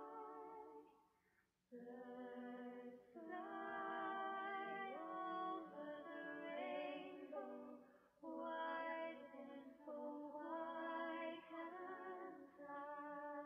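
Background song: a woman singing a slow melody with long held notes in phrases, briefly dropping out about a second in before resuming.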